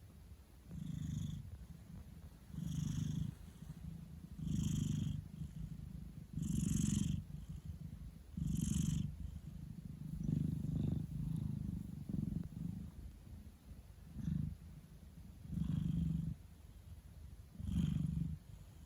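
Scottish Fold cat purring close up, a low rumble that swells and fades with each breath, about once every two seconds.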